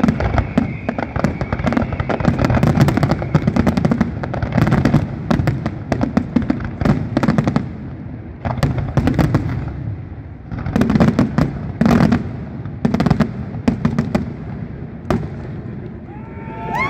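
Aerial fireworks shells bursting in quick, overlapping volleys of booms and bangs, with a lighter patch about halfway through before another heavy cluster of bursts.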